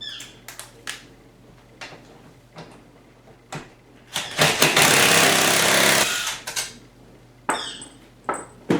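Power impact driver running for about two seconds, backing out a 13 mm bolt that holds a Fiero seat back to its bottom. Scattered clicks and knocks of the tool and socket come before and after it.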